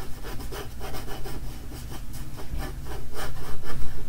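Graphite pencil scratching across drawing paper in quick, repeated sketching strokes.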